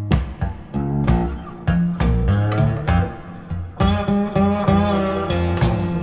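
Blues instrumental break played back through Mark Audio Alpair full-range drivers in backloaded horn cabinets: a plucked guitar lead over a walking bass line, with bent, wavering guitar notes in the second half.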